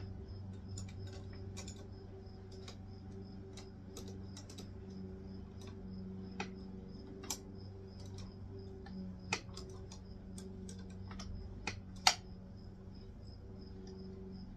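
Scattered small clicks and taps of hands and a tool working at a winch control box's wire terminals, with two sharper clicks about nine and twelve seconds in, over a low steady hum.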